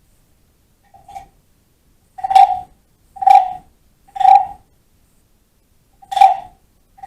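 Wooden frog guiro scraped with its stick, giving short rasping croaks: a faint one about a second in, then three about a second apart, a pause, and another near the end.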